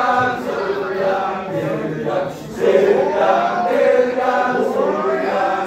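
Men's group chant of a Balinese kecak dance: many male voices chanting together, briefly falling away about two and a half seconds in before coming back.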